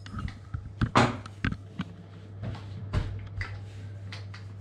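Scattered knocks and clicks as shortcrust dough is rolled out on a board, with one louder knock about a second in, over a steady low hum.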